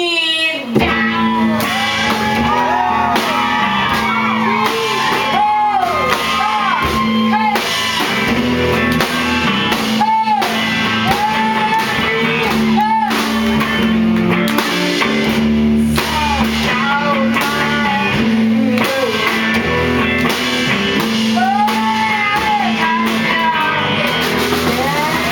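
Live band performance: voices singing over guitar and sustained low accompanying notes. The full band comes in together loudly about a second in.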